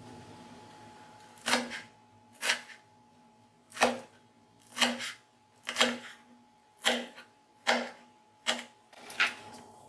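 Kitchen knife slicing curly red chillies on a wooden cutting board: about nine crisp chops, roughly one a second, each as the blade cuts through and hits the board.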